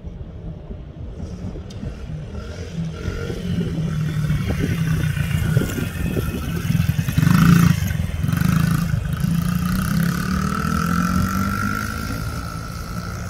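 Red Honda CRF50 mini dirt bike's small single-cylinder four-stroke engine running and revving as it is ridden over grass. It grows louder to a peak a little past halfway, then eases off toward the end.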